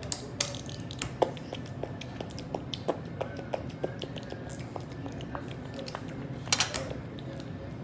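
Plastic Lego bricks clicking and clattering as pieces are handled and pressed together: a run of small, sharp, irregular clicks, with one louder rattle of pieces near the end.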